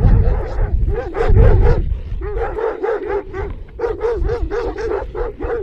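Several large sheepdogs barking and yelping aggressively, short calls repeated several times a second. A low rumble is loudest in the first couple of seconds.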